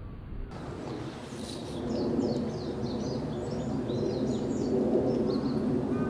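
Small birds chirping: many short, quick, high calls, starting about a second in, over a steady low background hum.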